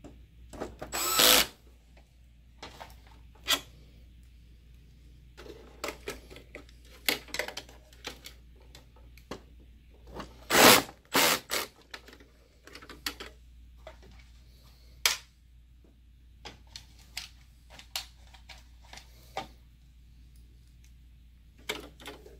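Cordless electric screwdriver driving screws into a projector's chassis in short runs, about a second in and again about ten seconds in, with scattered clicks and taps of parts being handled in between.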